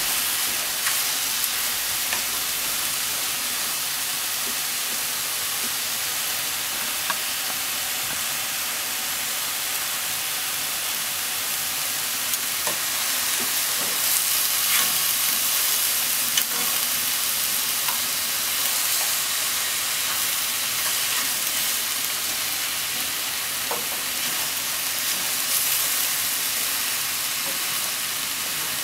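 Shiitake, enoki and negi sizzling steadily in a nonstick frying pan as they are stir-fried with wooden chopsticks, with an occasional sharp click of the chopsticks against the pan.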